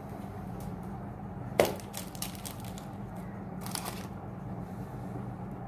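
A sharp tap about a second and a half in, followed by short bursts of crackling rustle, over a steady low hum.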